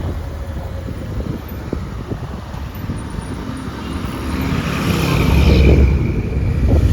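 Motorcycle road noise: a steady engine and road rumble that swells louder about four to six seconds in as another vehicle passes close.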